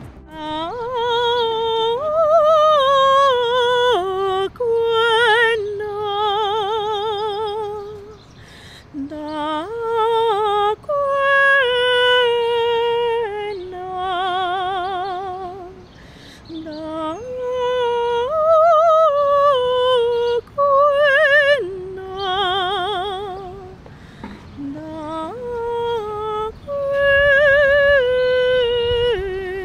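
A solo female soprano voice singing a slow melody without accompaniment and without clear words. The phrases are built of long held notes with wide vibrato that step up and down, with brief pauses for breath.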